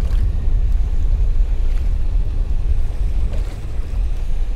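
Wind buffeting the microphone as a steady, loud low rumble, over the rush of a fast river around a small boat.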